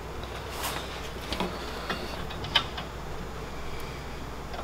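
A few scattered light metal clicks of a washer, lock washer and nut being fitted by hand onto a 3/8-inch stud on a steel bracket, over a low steady hum.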